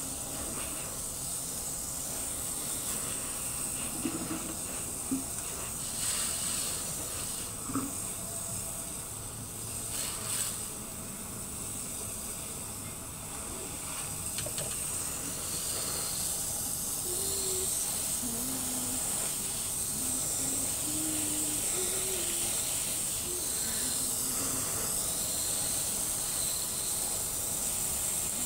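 Garden hose spray nozzle hissing steadily as a jet of water is sprayed onto a window screen's mesh and frame, with a few brief splashy spikes and a short lull partway through.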